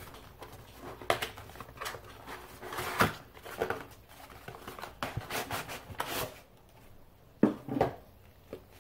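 A mail-in package being opened by hand: packaging crinkling and tearing in irregular rustles, with a few sharper handling clicks.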